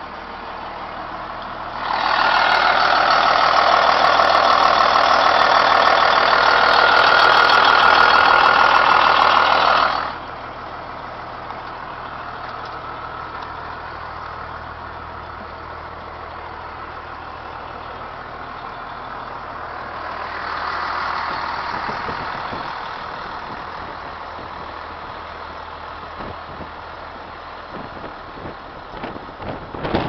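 The front-mounted Cummins B-series turbocharged diesel of a 1995 Thomas school bus idling steadily, heard from inside the bus. A loud, even rushing hiss starts about two seconds in and cuts off about eight seconds later, and a softer one swells about twenty seconds in.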